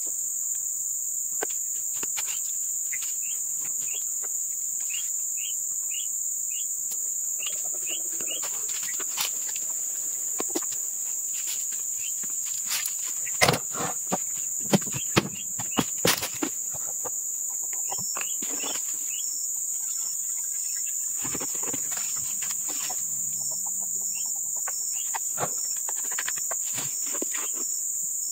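Steady high-pitched insect chorus, with scattered light clicks and knocks throughout and a cluster of louder knocks about halfway through.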